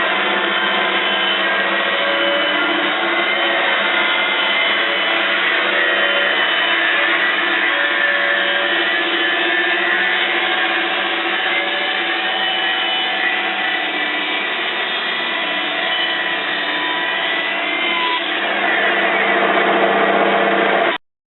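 R-60 band sawmill, driven by a 5.5 kW electric motor, running steadily with the hum and whine of the motor and band blade. About 18 seconds in the sound shifts and grows a little louder, then it stops suddenly near the end.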